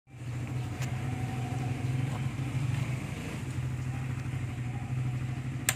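Honda XRM 125 Fi's single-cylinder four-stroke engine idling steadily, fed through a newly fitted adjustable fuel pressure regulator that raises the stock pump's pressure. A single sharp click near the end.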